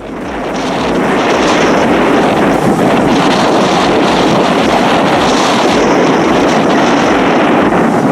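Loud, steady rushing noise from an amphibious vehicle moving through water, with water wash and wind on the microphone, swelling over the first second and then holding.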